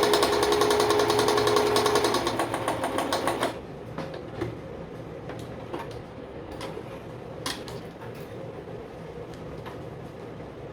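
Vigorelli 238 sewing machine running at speed, stitching the right side of a buttonhole on its F setting: a rapid, even run of needle strokes with a motor whine. It stops suddenly about three and a half seconds in, followed by a few faint clicks.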